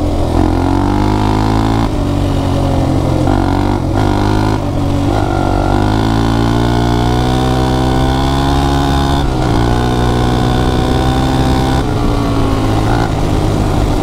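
Suzuki LT-Z400 quad's liquid-cooled single-cylinder four-stroke engine pulling hard under load while riding, its note breaking briefly every few seconds as it shifts up through the gears. Wind rushes over the microphone. The engine runs cleanly and holds its revs, where before it would not stay running.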